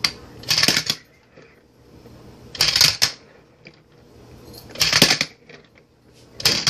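Handboard's wheels and deck clattering on a hard countertop as it is rolled and snapped through tricks: short bursts of clacking and scraping, four of them about two seconds apart.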